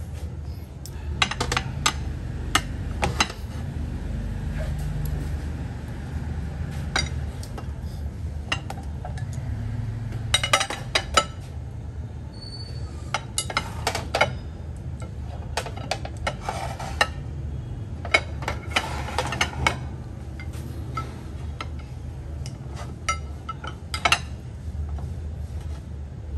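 Ceramic plates clinking and knocking as they are set down and shifted on a metal serving tray: short sharp clinks in irregular clusters throughout, over a steady low hum.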